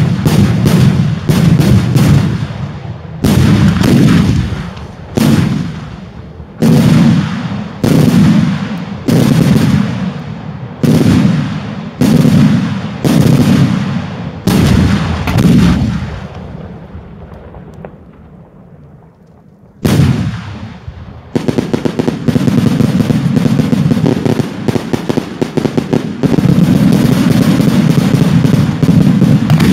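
Fireworks shells exploding in the sky: loud booms about once a second, each with a rumbling tail. After a short lull and one more bang, a dense rapid barrage of reports runs to the end.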